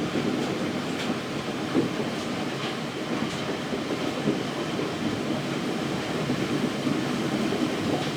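Heavy rain pouring steadily in a thunderstorm downpour, with a few faint sharp ticks of drops striking.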